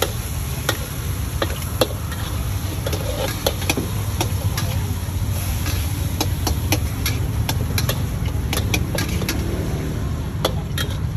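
Metal spatula clanking and scraping against a wok in quick, irregular strikes as meat is stir-fried, over the steady low rumble of the gas wok burner.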